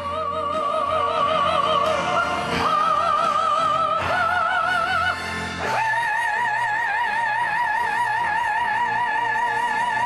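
Operatic singing: one voice with wide vibrato holds several notes that step upward, then sustains a long high note from about six seconds in.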